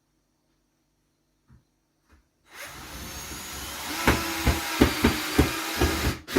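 Power drill driving a screw into the ceiling for a pot rack: the motor starts about two and a half seconds in and runs steadily, then a series of heavy knocks comes about two to three times a second as the screw tightens down, and it stops suddenly near the end.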